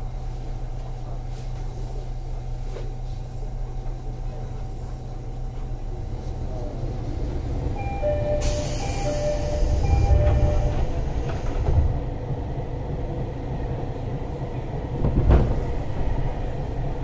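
Inside a 205-series electric train car: a steady low rumble from the running gear that grows louder about halfway through. Under it come a short run of repeated beeping tones and a burst of hiss about eight seconds in, then a single thump near the end.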